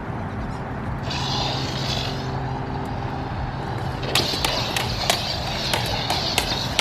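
Lightsaber sound-font hum with swinging whooshes, then, about four seconds in, a run of sharp irregular clashes as the blade strikes.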